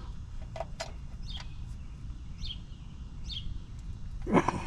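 Small bird chirping, short falling notes about once a second, over a steady low background rumble, with a couple of faint clicks about half a second in.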